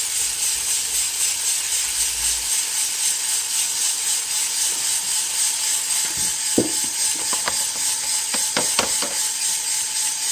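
Green coffee beans tumbling and rattling in the rotating drum of an Aillio Bullet roaster just after charging, a steady hiss. A knock and then a few sharp clicks come in the second half as the charging funnel is handled and lifted off.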